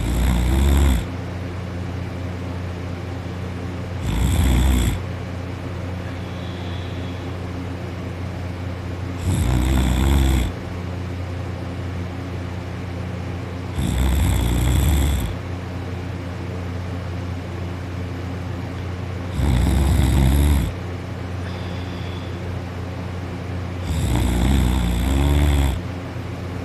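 A person snoring real loud in their sleep: six snores spaced about five seconds apart, each lasting about a second, over a steady low hum.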